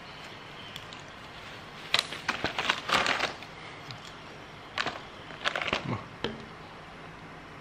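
Plastic-foil snack packet crinkling and rustling as it is handled, in two bursts: about two seconds in and again about five seconds in.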